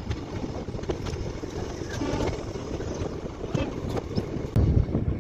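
Passenger train pulling out of a station, heard from its open doorway: a steady rumble with occasional sharp clicks. Wind buffeting the microphone grows louder near the end as the train gathers speed.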